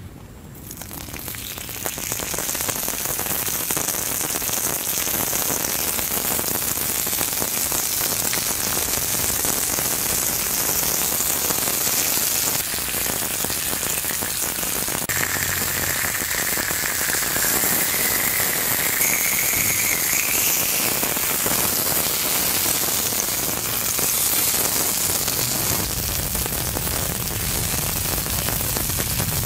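Cooking oil and thin slices of meat sizzling on a hot flat stone. The sizzle swells over the first couple of seconds as the oil goes on, then runs steady and dense.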